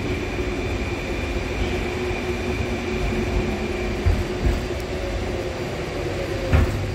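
Inside an 81-725.1 "Baltiets" metro car slowing into a station: steady running rumble with an electric drive whine. In the second half the whine slowly falls in pitch as the train brakes, and two thumps come near the end.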